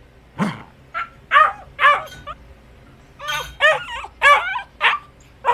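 Dog yipping and whining in short, high-pitched calls that rise and fall. There is a loose string of them in the first half, a short pause, then a quicker run of about five.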